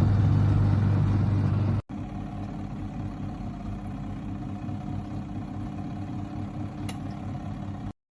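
Mini single-tub washing machine's motor running with a steady hum. It breaks off sharply about two seconds in, carries on more quietly, and cuts off just before the end.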